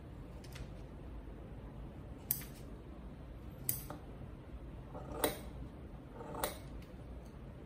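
Scissors snipping construction paper: four short, sharp snips a second or more apart.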